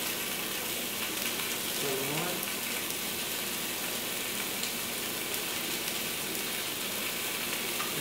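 Chopped onions sizzling steadily in rendered lamb fat in an enamel-coated cast iron Dutch oven.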